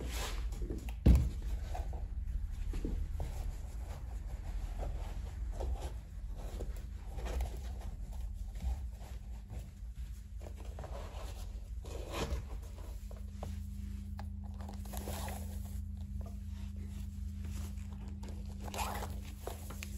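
Hands handling suede boots on a steel workbench: a sharp knock about a second in as a boot is set down, then rustling and scraping as the boots are handled and a lace is threaded through their metal eyelets and hooks. A low steady hum joins about two-thirds of the way through.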